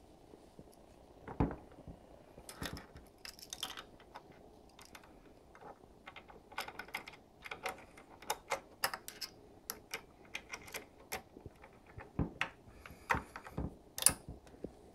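Irregular light clicks and taps of a screwdriver and small screws working against the metal mounting bracket and plastic housing of a POS register while the display mount is screwed on, with a louder knock about a second and a half in and a sharp click near the end.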